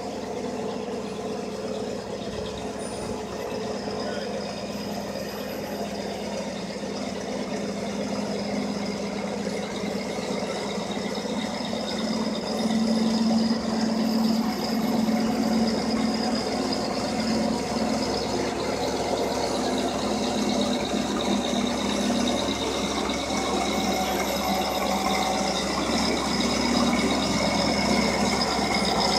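Diesel engine of a road-rail railcar mover running steadily under load as it tows a dead steam locomotive along the track, growing louder about halfway through as it draws closer.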